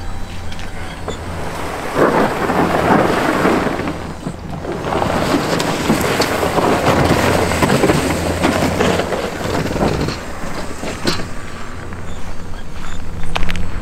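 A pickup truck's engine running while its rear pull plow blade scrapes and drags snow across pavement, in two long stretches of rough scraping noise.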